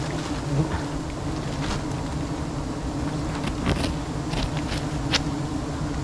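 Swarm of honeybees buzzing steadily around their wild nest as it is being cut down, with a few brief clicks and snaps on top.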